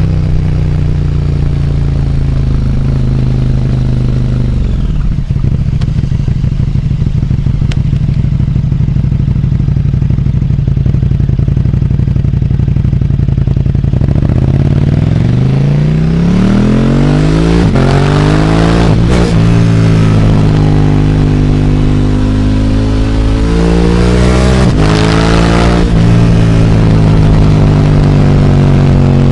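KTM 1290 Super Duke R's V-twin through a full Akrapovic exhaust system, with a remapped ECU, under way. It holds a steady low-rev note for roughly the first half. The engine then revs up hard, the note rising and falling through several quick gear changes, before settling back to a steady run near the end.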